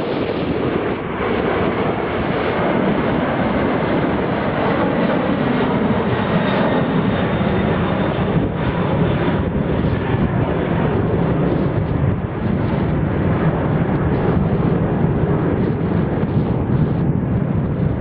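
Boeing 747-400's four jet engines running at high power as the airliner passes close and climbs away: loud, steady jet noise. A faint high whine fades in the first few seconds, and the sound deepens in the second half as the aircraft moves off.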